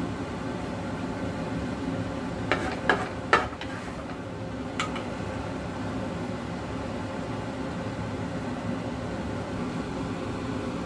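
A steady, fan-like mechanical hum, with a few light clinks of a ladle against a ceramic plate from about two and a half to five seconds in as sauce is ladled over tofu.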